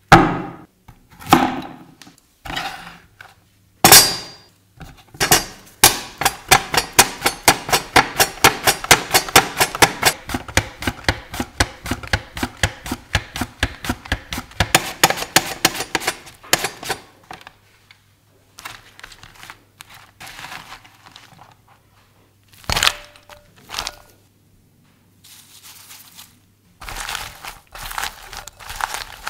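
Zucchini knocking down onto a bamboo cutting board, then a manual vegetable slicer cutting zucchini into thin slices, about three strokes a second, steady for some ten seconds. Near the end, hands toss the wet, salted slices in a glass bowl with a soft rustle.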